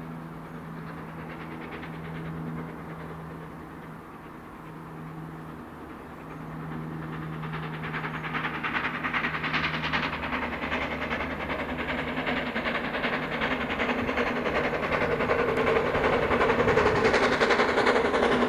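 GWR Castle class 4-6-0 steam locomotive 5043 Earl of Mount Edgcumbe approaching with its train. Its running grows steadily louder and fuller from about seven seconds in as it nears.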